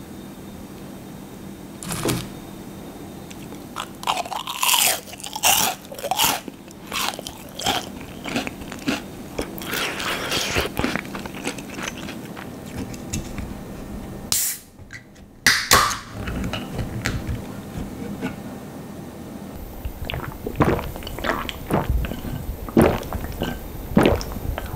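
Bites and chewing of crisp deep-fried young hairtail (풀치), crunching in irregular bursts, with a short break about halfway through.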